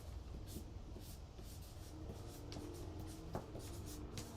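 Hand-drawing with a writing tool: a run of short scratching strokes on a drawing surface as a rune is drawn.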